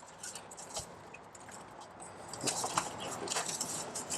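Faint clinks and rattles of metal parts as the fastenings of an oil bath air cleaner are worked and tightened by hand. The clicks come closer together in the second half.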